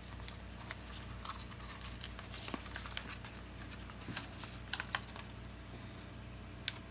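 Sticky insect-trap sheet being handled as its paper backing is peeled off: scattered light clicks and paper rustles over a steady low hum.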